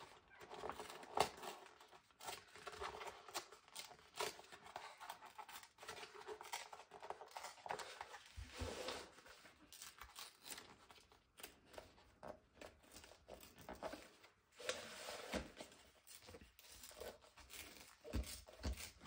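A printed paper page being torn slowly by hand, in a series of short, irregular rips with crinkling and rustling of the paper.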